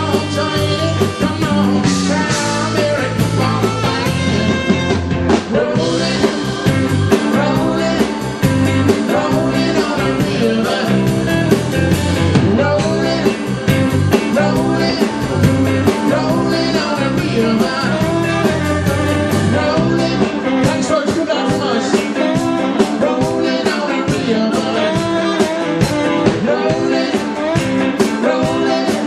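Live rock band playing: electric guitar, electric bass and drum kit, with a male lead vocal singing over them. The deep bass drops back about two-thirds of the way through while the guitar, drums and voice carry on.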